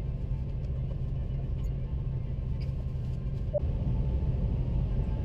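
Steady low drone inside an Airbus A330-300's cabin on the ground, with a few faint clicks.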